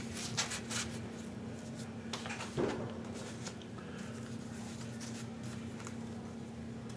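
Soft rustling and handling of paper greeting cards and envelopes, with a short louder bump about two and a half seconds in, over a steady low hum.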